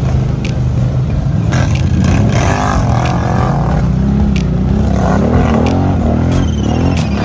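ATV engines revving up and down as they drive through creek water, with water splashing and clattering against the machines.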